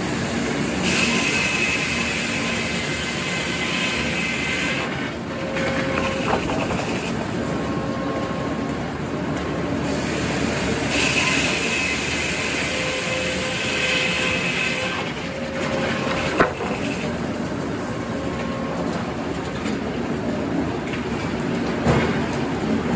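Circular sawmill headsaw running, with the log carriage rolling on its track. The blade rips through white oak twice, each cut a few seconds long with a high hissing whine, about a second in and again about eleven seconds in. A sharp knock comes a little after the second cut and another near the end.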